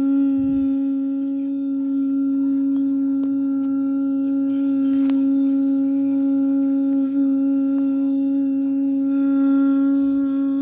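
Test tone: a single steady pitched tone with a row of overtones, held at one pitch and level throughout. A few faint clicks sit under it.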